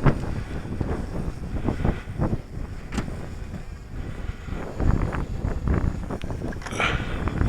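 Strong gusty wind, blowing 20–25 mph and gusting over 30, buffeting the microphone in uneven low rumbles that swell and drop. A sharp click about three seconds in.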